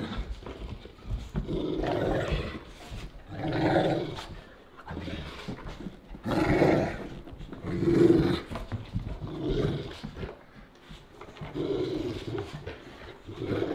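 Dogs growling in play during a play fight between an adult Cane Corso and a puppy: a string of rumbling growls, a new one every second or two.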